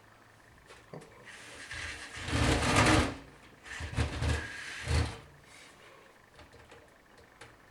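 A DVD burner being slid and scraped along the metal drive bay of a PC case: one long scraping push, loudest near three seconds in, then two shorter scrapes about four and five seconds in.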